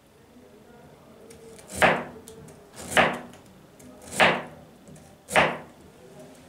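Kitchen knife slicing through a crisp vegetable onto a plastic cutting board: four slow, even cuts about a second apart, starting about two seconds in, each a short rasp that falls in pitch.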